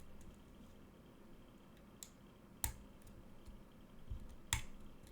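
A few small, sharp metallic clicks from a lockpick working the pins of a pin-tumbler challenge lock held in a false set. The two loudest come just past the middle and near the end.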